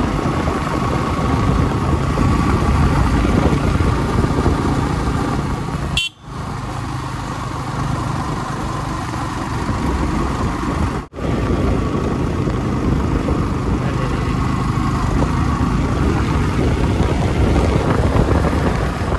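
Motorcycle running on the move, with a steady rush of road and wind noise heaviest at the low end. The sound drops out abruptly twice, about six and eleven seconds in.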